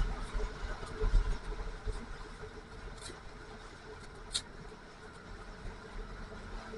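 Snowmobile engine running steadily during a ride, with irregular low thumps and two short sharp clicks about three and four and a half seconds in.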